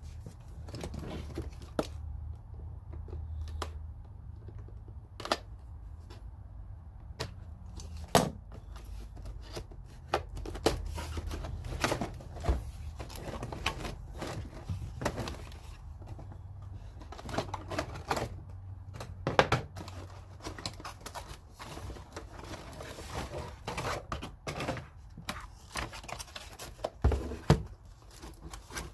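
A box and its packaging being opened and unwrapped by hand: irregular rustling, tearing and clicking, with a few sharper knocks, the loudest about eight seconds in and another near the end.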